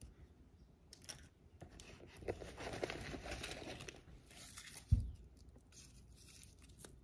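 Wrappers of individually wrapped Luden's throat drops crinkling and rustling as a handful is pulled out of a small zippered pouch, with one soft thump about five seconds in.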